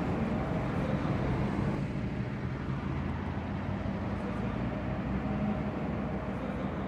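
A steady low rumble, with no clear events in it.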